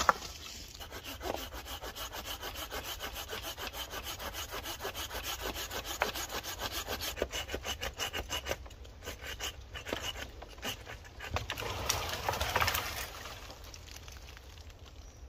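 Hand saw cutting through wood in quick, even back-and-forth strokes for most of the first nine seconds, then slower, uneven strokes.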